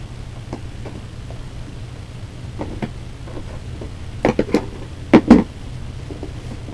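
Cardboard toy box and its packaging being handled: a few light clicks, then a cluster of sharp knocks and scrapes about four seconds in and two louder ones just after five seconds, over a steady low room hum.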